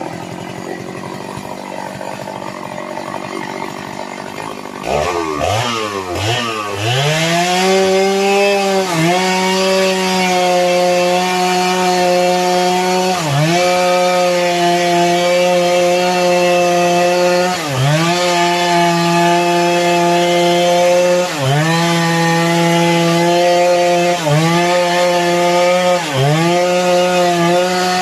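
Two-stroke chainsaw idling, then revved up about five seconds in and held at full throttle cutting through sengon wood. The engine note dips briefly several times as the chain bogs in the cut, then picks up again.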